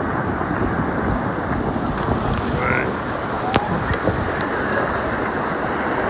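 River rapids rushing around an inflatable raft: a steady, even rush of churning white water.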